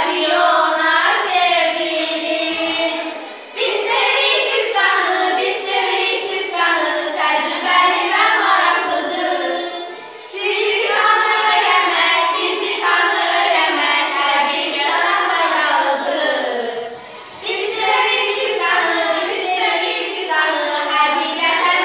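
A small group of young girls singing a song together, phrase after phrase, with brief breaks for breath about every seven seconds.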